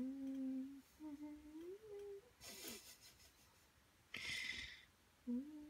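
A woman humming softly in short closed-mouth "mmm" tones: one held, one gliding upward, and another near the end. Between them come two brief rustling noises.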